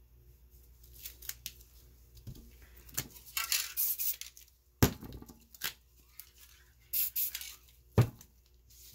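Paper masking or tape being peeled and pulled off a spray-painted canvas, in bursts of tearing and crackling, loudest a few seconds in. Two sharp knocks cut through, about five seconds in and near the end.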